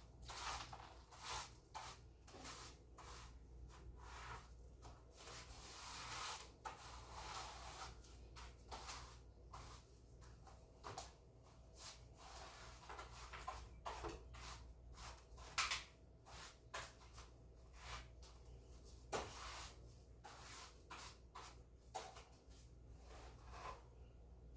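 Faint, irregular brushy swishes of a broom sweeping the floor, one to three strokes a second, with a few sharper scrapes.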